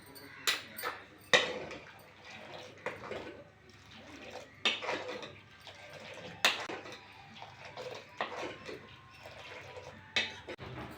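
A metal spoon stirring milk in a cooking pan, with several sharp clinks of the spoon against the pan at uneven intervals and some liquid sloshing.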